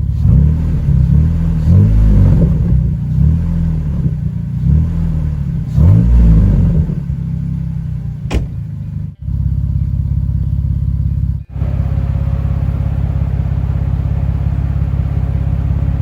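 Car engine running, revved up and down several times, then settling to a steady idle after a jump start.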